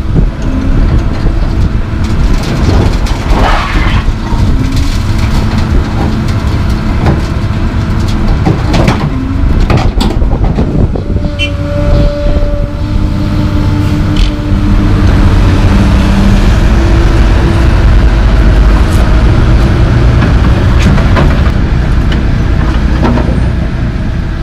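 Komatsu PC220LC excavator's diesel engine running under hydraulic load while chunks of broken concrete clatter and bang into the steel bed of a dump truck, with many knocks over the first half. From about halfway through the engine grows louder and steadier, then fades out near the end.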